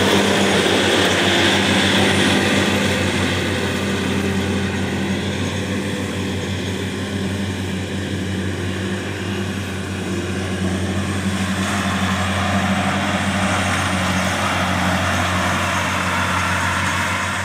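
Case IH CVX 1195 tractor running with its front mower and rear JF-Stoll mower conditioner working: a loud, steady engine and mower drone with a low hum, easing a little as the rig moves away.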